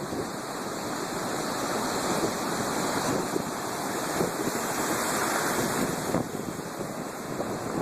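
Stormy sea surf: waves breaking and washing in a continuous rush, with wind. A wave's rush builds through the middle and eases about six seconds in.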